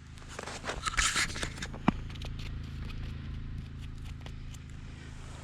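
Footsteps crunching through snow, loudest in the first two seconds with a sharp click just under two seconds in, then lighter scattered crunches, over a steady low hum.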